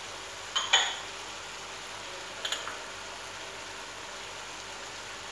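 Chicken in melted butter sizzling faintly and steadily in a wok, with a light ringing clink of kitchenware about half a second in and a smaller clink about two and a half seconds in.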